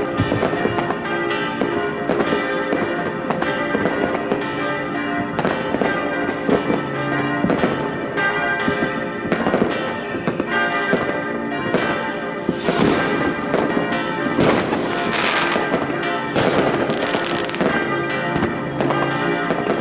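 Fireworks banging and crackling continuously, many bursts overlapping, most densely in the second half. Beneath them, church bells peal steadily for midnight.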